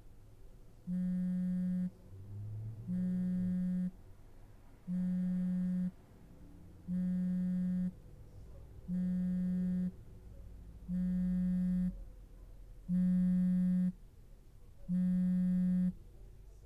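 A smartphone vibrating on a bed with an incoming call: about one-second buzzes, each a steady low hum, repeating every two seconds.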